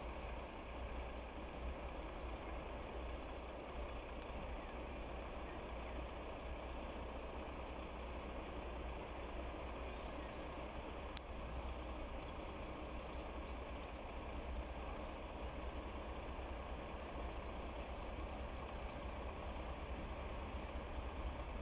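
Small birds chirping in short groups of two or three high notes, again and again every few seconds, over a steady low outdoor rumble.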